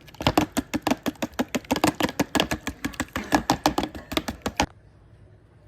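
Eggs and milk being beaten in a dish, the utensil clicking rapidly against the bowl at about eight strokes a second, stopping abruptly near the end.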